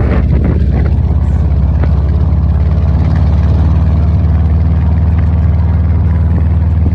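Dune buggy engine running steadily while the buggy drives over sand, a loud low drone with rushing wind noise on top.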